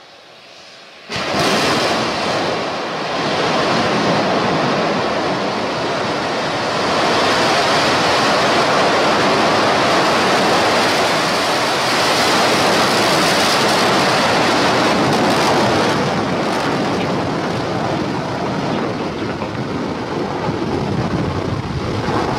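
SpaceX Starship SN5 prototype's single Raptor rocket engine igniting about a second in and running through lift-off and climb: a sudden onset, then a loud, steady roar.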